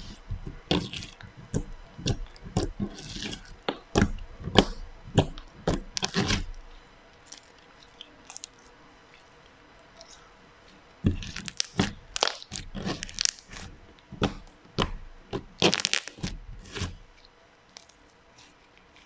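Hands pressing and folding a soft glossy slime, making quick wet crackles and pops as air pockets in it burst. The crackling comes in two bouts with a quiet stretch of a few seconds between them, and dies away near the end as the slime is stretched out slowly.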